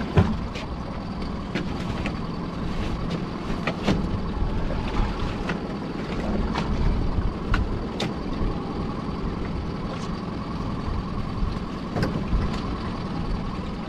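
A small fishing boat's engine running steadily under wind and water noise, with sharp knocks and rattles of lobster pots being handled on deck. The loudest knock comes right at the start.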